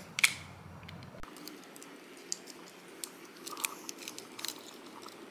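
Hard plastic parts of a Transformers toy robot clicking and clacking as they are folded and fitted together by hand: scattered short clicks, the loudest about a quarter-second in.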